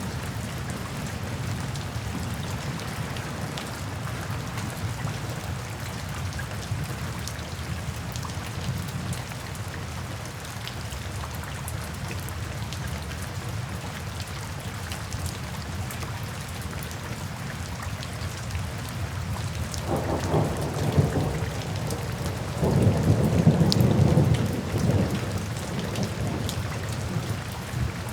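Steady rain falling, with two rolls of thunder about two-thirds of the way through, the second louder and longer than the first.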